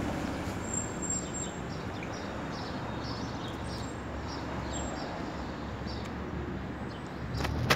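Small birds chirping in short repeated calls over a steady outdoor background hiss, with one sharp click near the end.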